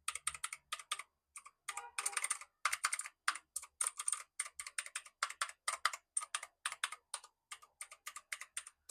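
Typing on a Jedel KL-69 mini mechanical keyboard with clicky blue switches: rapid, irregular key clicks, several a second, with brief pauses between runs.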